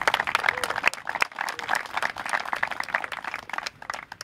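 A small group clapping hands in applause, dense at first and thinning out near the end.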